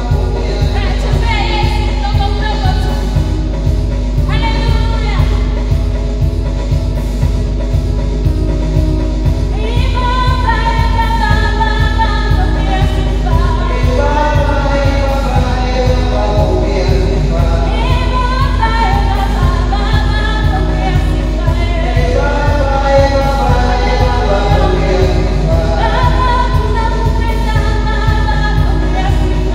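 Gospel worship song: voices singing a melody over a steady low beat of instrumental accompaniment.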